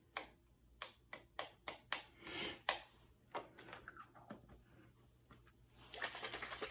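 Small plastic snow-globe parts and a glitter pouch being handled: a run of sharp plastic clicks and crinkles, then a dense, steady crackling rustle that starts about six seconds in.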